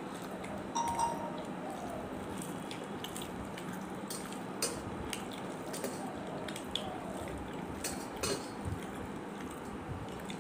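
Eating rice by hand from a plate: fingers mixing and scooping rice, with scattered sharp clicks and clinks against the plate, the loudest about a second in and again near the middle and toward the end.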